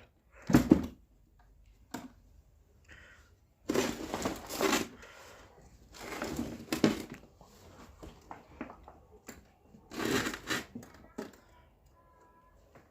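A homemade wooden speaker box being pried and lifted open by hand: knocks, scraping and rubbing in several bursts, with a sharp click or two in between.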